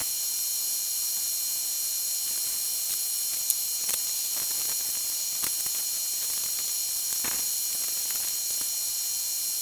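Steady hiss with a faint high whine. A few faint taps and rustles come through about midway, as hops and plastic cups are handled on the scale.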